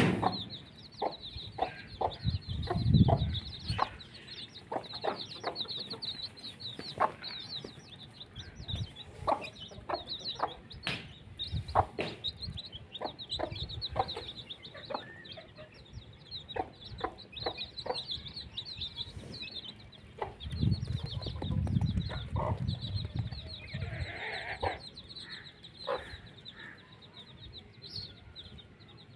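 Chickens clucking over a steady run of thin, high chirping, with many short sharp clicks scattered throughout. Low thumping comes briefly early on and again for a couple of seconds past the middle.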